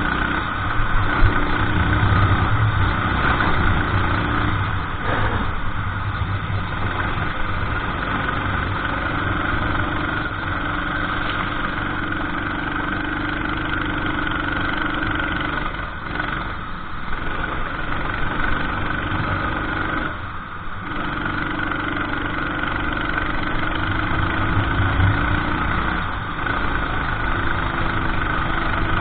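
Racing kart engine running under load through a lap, its pitch shifting and the sound dropping briefly several times as the throttle is lifted into corners and picked up again.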